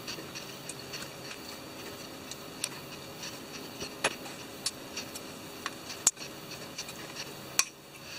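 Scattered light clicks and taps of carbon fibre drone frame plates and arms being handled and fitted together by hand, over a steady faint hum.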